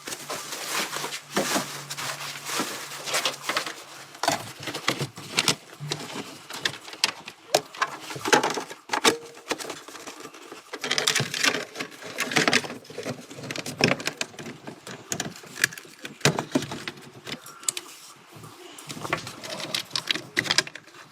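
Dense, irregular tapping and clicking, with a faint low hum during the first few seconds.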